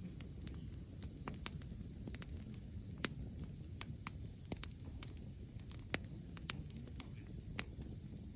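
Wood bonfire burning, with irregular sharp crackles and pops over a low steady rumble.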